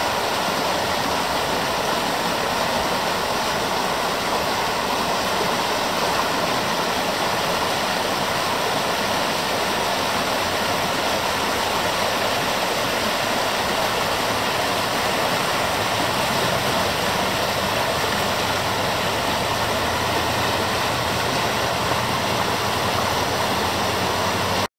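Shallow river rushing over rocky riffles: a steady, even rush of water. A faint low hum joins in about halfway through.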